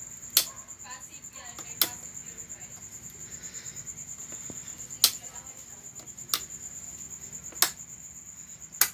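A steady high-pitched trill runs throughout. Six sharp clicks cut through it at uneven gaps of one to three seconds, and these clicks are the loudest sounds.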